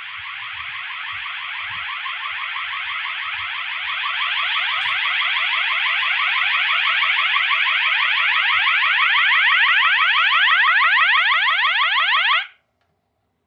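Multitone fire alarm horn sounding a loud warble, a rapidly repeating sweep that grows steadily louder and then cuts off suddenly near the end.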